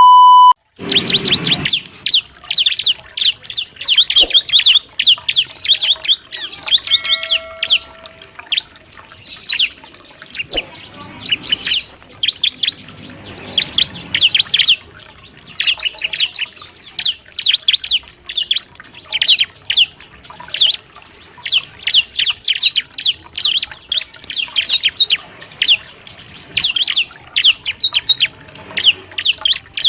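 Bar-winged prinia (ciblek) singing: repeated fast series of high, sharp chirps in short phrases every second or two. A short electronic beep sounds right at the start.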